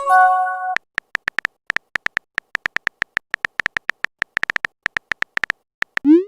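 Phone chat sound effects. A short chime of several steady tones sounds for under a second, then come about five seconds of rapid, irregular typing clicks, and near the end a quick rising swoop like a message being sent.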